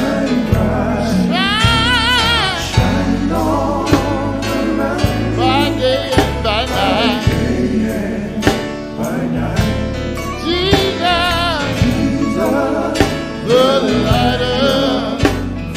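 Live gospel band: a man sings lead into a microphone with a wide, wavering vibrato on long held notes, backed by electric guitar, bass guitar and a beat of regular hits.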